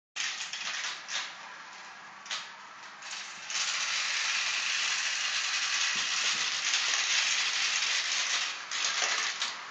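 Marbles rolling and rattling down a plastic marble run's tracks and spiral chutes: a steady clatter lasting about five seconds, after a few separate clicks at the start.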